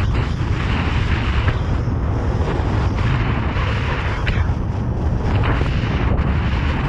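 Wind buffeting a helmet-mounted camera's microphone at speed, a loud steady rumble, with the hiss of ski edges carving over hard-packed snow swelling and fading with each turn.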